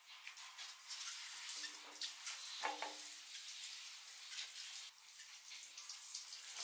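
Handheld shower head spraying water, a steady hiss with splashing.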